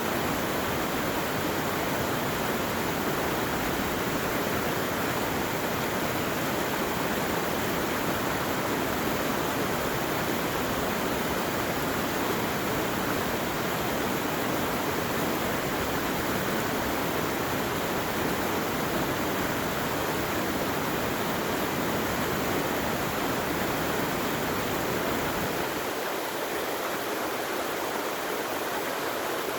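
Rushing water of a mountain stream, a steady wash with no breaks. Near the end the deeper rumble drops away and a lighter hiss remains.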